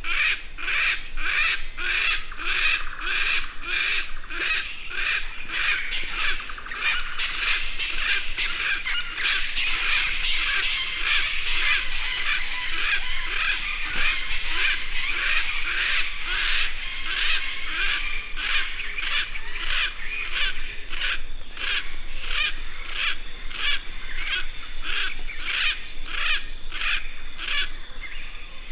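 A chorus of animal calls repeating in an even rhythm, about two a second without a break, cutting off abruptly near the end.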